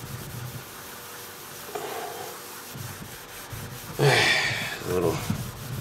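Fine Scotch-Brite scouring pad scrubbed back and forth over a metal oven pan coated in foamy cleanser, a steady rubbing that gets louder for about a second and a half some four seconds in.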